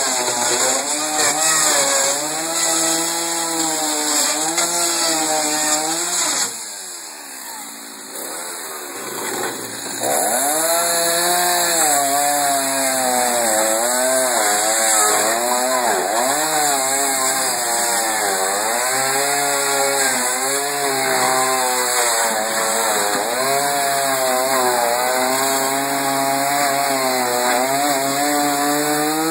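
Stihl two-stroke chainsaw cutting through a wooden dresser, its engine pitch repeatedly sagging under load and climbing back as the chain bites and clears. About a quarter of the way in it drops quieter for a few seconds, then comes back at full throttle.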